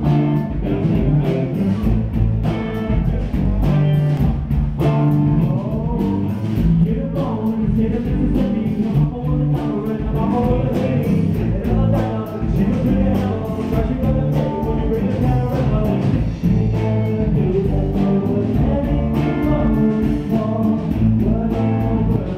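Live band playing a song: a singer over guitar and drums with a steady beat.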